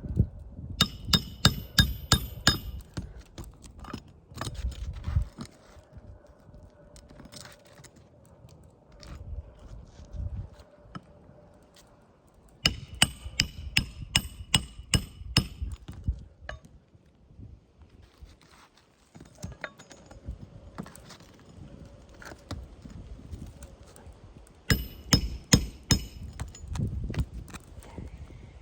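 Three bursts of rapid metallic taps, several strikes a second with a bright ringing, from a metal hand tool striking on an asphalt-shingle roof.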